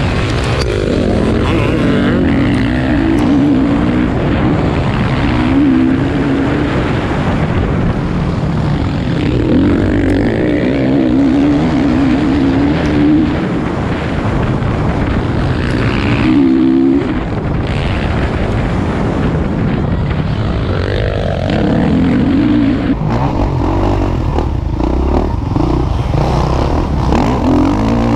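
Motocross bike engines revving hard and falling off again and again as the bikes accelerate around a dirt track, over a continuous low rumble.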